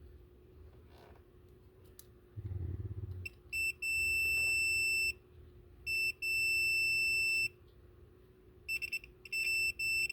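Electronic continuity beeper sounding as a mercury switch is tilted, beeping only while the mercury closes the contacts. It gives three long steady beeps of a second or two each, and the last one stutters on and off. A dull thump from handling comes before the first beep.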